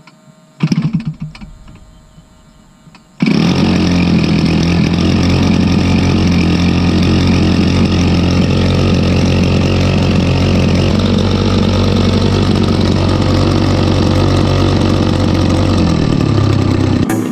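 Piston engine of a large radio-controlled aerobatic model plane being started. There is a short burst that dies away about a second in; then it catches about three seconds in and idles steadily, speeding up near the end.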